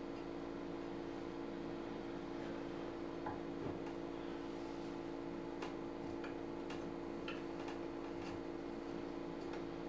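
Light, irregular ticks and taps of a hand carving tool working a small wooden figure, about ten of them from a third of the way in, over a steady low hum.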